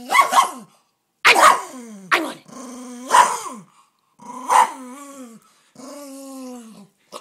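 Miniature Pinscher growling and barking over his bone, guarding it. About five bouts, each opening with a sharp bark and trailing off into a falling growl.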